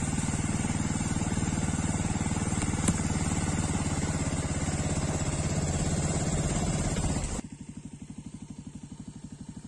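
Motorcycle engine running steadily under way, with a steady rush of road and wind noise. About seven seconds in the sound drops abruptly to a much quieter, evenly pulsing engine note.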